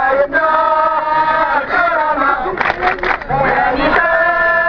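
A crowd of protesters chanting slogans in unison, in rhythmic phrases with long held notes.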